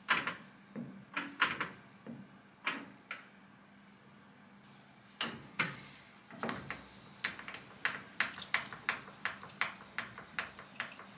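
A run of short, light clicks: a ruler flicking past the tip of a lathe parting tool while the carriage is adjusted to set the tool flush with the outside of the workpiece. The clicks come a few at a time at first, then about three a second in the second half.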